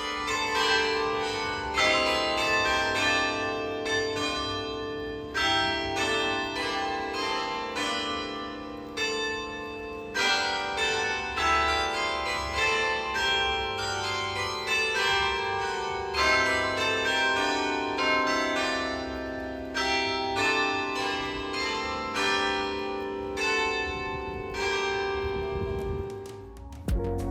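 Bells ringing in a fast, unbroken run of struck notes, many tones overlapping and dying away.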